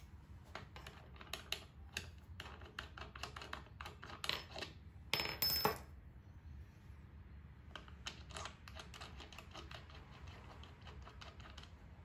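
Light clicks and metallic taps from a Dowelmax doweling jig's aluminium guide block, its toggle clamps and small metal parts being handled and fitted on a hardwood board. The loudest cluster, about five seconds in, carries a brief metallic ring.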